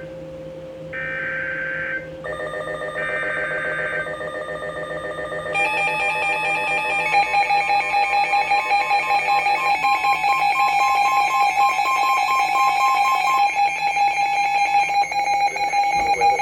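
Emergency Alert System alert on NOAA Weather Radio: three one-second bursts of the digital SAME header data tones, a harsh screech, mark the start of a severe thunderstorm warning. From about two seconds in, a rapid, multi-tone alarm begins beeping; it grows louder about five seconds in and keeps sounding.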